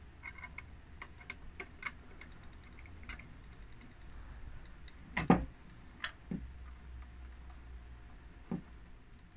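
Small, scattered clicks and ticks of a washer and a 3D-printed plastic rail being handled and fitted against a BB gun's metal receiver, with one louder knock about five seconds in and a couple of soft thumps after it.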